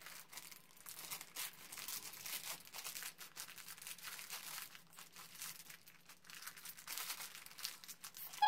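Crinkly plastic bag of gummy candies being pulled and twisted open by hand, rustling and crackling irregularly, with a short high-pitched cry right at the end.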